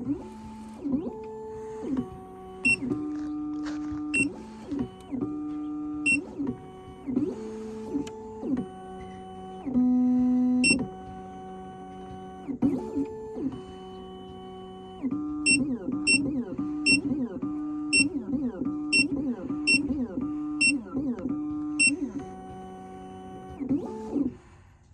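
Black Widow computerised key machine decoding a key: its stepper motors whine in short steady tones that jump between pitches as the carriage and probe move. In the second half this becomes a faster run of short repeated tones with light ticks about twice a second, as the probe steps across the key's cuts.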